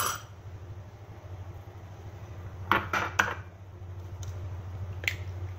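A hen's egg knocked against the edge of a dish to crack it: three sharp taps in quick succession about three seconds in, with a single click at the start and another near the end, over a steady low hum.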